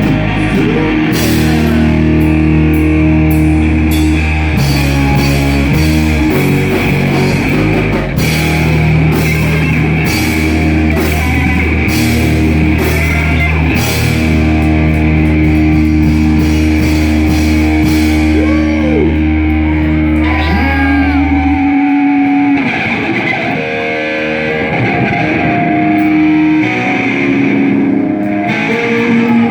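Live heavy rock band playing: electric guitar, bass and drum kit with cymbal crashes. About 22 seconds in, the bass drops out and the guitar carries on with bent notes.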